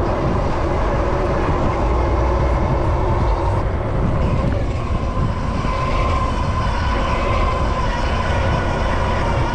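Wind rumble on the microphone and street traffic noise while riding an electric bike, with a steady whine joining about halfway through.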